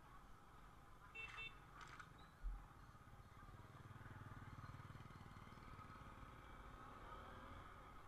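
Faint motorcycle engine running, swelling to its loudest about four to five seconds in as a motorcycle with a sidecar passes close by. Two short high chirps come about a second in, and a dull thump follows shortly after.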